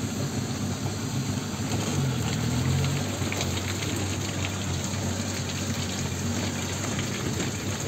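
A vehicle's engine running slowly in low gear while its tyres roll through deep wet mud, with a steady wet crackling and splashing from the track.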